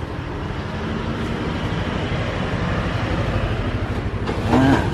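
A steady low motor rumble with a fast, even pulse, like a running engine; a short voice sound about four and a half seconds in.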